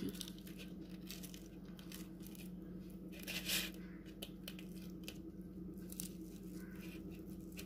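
Fingers crushing fried dried red chillies and squishing them into a mash of hilsa fish and chopped onion: faint crackles and rustles, with one louder crackle about three and a half seconds in, over a steady low hum.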